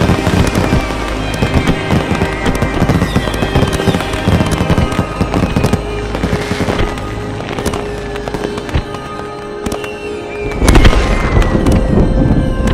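Music score with sustained held notes, layered with crackling thunder. A heavy low rumble of thunder swells about eleven seconds in.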